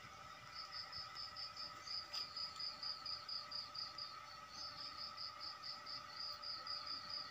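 An insect chirping in a steady high-pitched pulsing trill, about five pulses a second, with brief pauses just after the start and about halfway through, over a faint steady hum.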